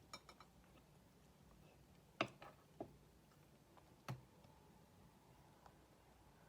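A few sharp small clicks and taps against quiet room tone: a quick cluster at the start, a louder click a little after two seconds followed by two lighter ones, and another sharp click about four seconds in.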